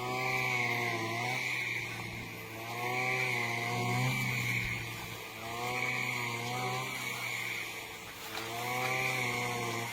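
Brush cutter's small engine running and revving up and easing back in repeated surges, about every three seconds, as it cuts rice.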